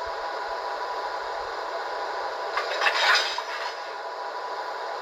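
MTH O-gauge model subway train running on three-rail track: a steady whirr of the motor and wheels over the rails, with a brief louder burst about three seconds in.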